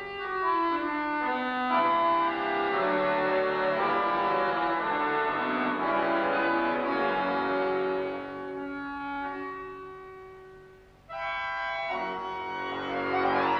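Two bayans (Russian button accordions) playing a folk-style concert piece together, full held chords and running melody. About eight seconds in the music dies away to a soft hush, then both instruments come back in suddenly and loudly about three seconds later.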